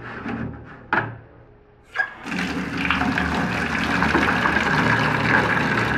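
A bucket knocked into place in a metal utility sink, then tap water running hard into the bucket from the faucet, starting about two seconds in and running steadily.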